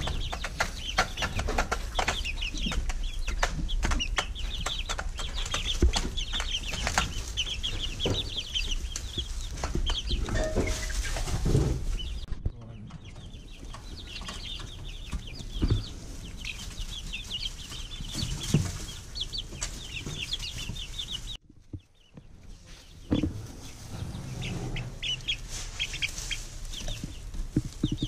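A brood of five-week-old chicks peeping constantly, many short high cheeps overlapping, with scattered knocks and rustling among them.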